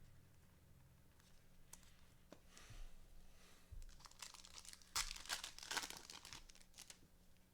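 Trading card pack wrappers being torn open and crinkled, a quiet crackling that gets busier from about four seconds in.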